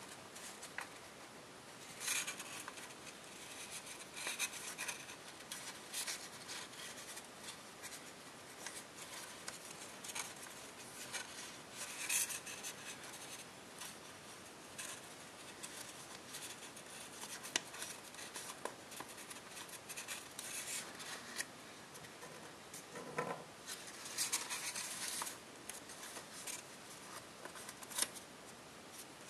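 Copper tissue foil being folded and creased by hand: a run of crisp crinkles and rustles with short crackles scattered through, louder bursts about 2, 12 and 24 seconds in.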